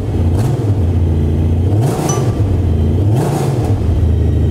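Honda Valkyrie Rune's flat-six engine idling with three throttle blips, the pitch rising and falling each time. It sounds pretty good.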